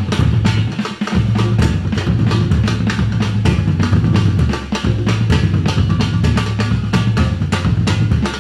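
Live band playing a drum-heavy groove: a row of players on large strapped hand drums beating a dense, fast rhythm over a deep repeating bass line.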